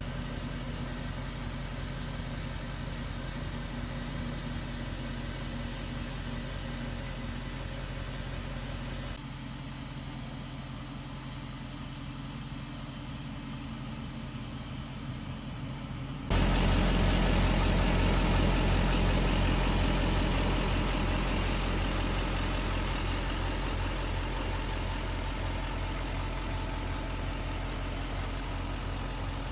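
Chevrolet Silverado 5500 welding truck's engine idling steadily. The sound changes abruptly twice, about nine and sixteen seconds in, and is loudest after the second change, then slowly eases off.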